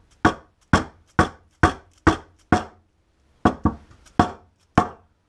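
Rubber mallet blows driving a freezer-shrunk brass pivot bushing into the oven-heated bore of a Honda CB350 swing arm, about ten sharp knocks. Six come evenly at about two a second, then after a short pause four more. The bushing goes in pretty simply.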